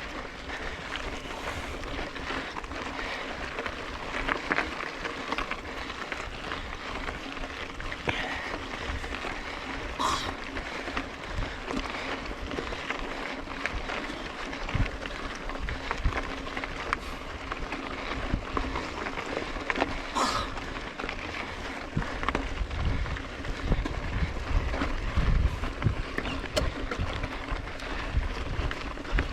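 Mountain bike being ridden on a dirt trail: steady tyre noise with a constant small rattle of chain and frame, and two short high squeaks about ten seconds apart. Wind buffeting on the microphone grows heavier over the last several seconds.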